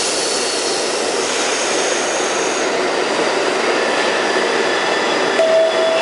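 Interior of a New York City Subway R68 car under way: a steady, loud rumble and roar of wheels on the rails. A brief steady tone sounds near the end.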